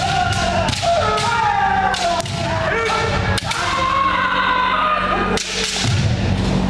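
Bamboo shinai striking kendo armour with several sharp cracks, over overlapping long kiai shouts from several practitioners. A steady low hum runs underneath.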